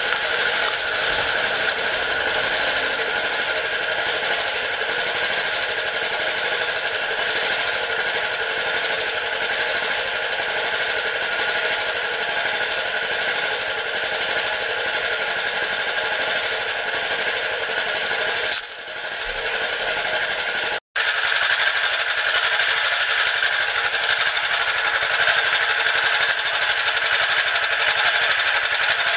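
Small engine of a self-propelled rope winch idling steadily with a fast mechanical chatter. It drops out briefly about two-thirds of the way through and comes back a little louder.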